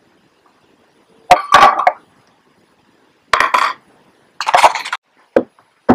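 Small metal tools clinking and clattering as they are handled and set down on a work bench, in three short bursts: about a second and a half in, about three and a half seconds in, and at four and a half seconds, followed by a couple of single knocks near the end.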